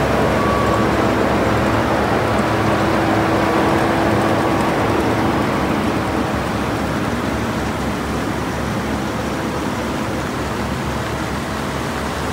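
Caterpillar CW16 pneumatic-tyred road rollers' diesel engines running steadily as the rollers drive along the road close by. The level eases slightly in the second half.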